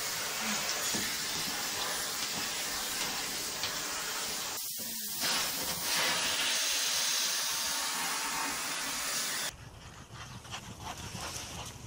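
Canister vacuum cleaner running steadily as its nozzle is drawn over a dog's coat. It cuts off suddenly about nine and a half seconds in, leaving a much quieter background.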